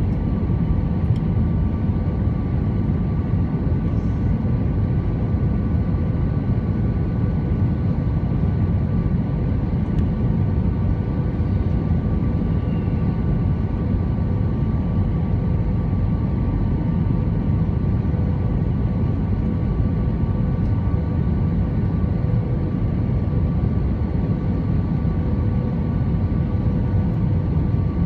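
Cabin noise inside an Airbus A320-214 in flight: a steady low drone of engine and airflow noise with a faint steady hum from its CFM56 engines.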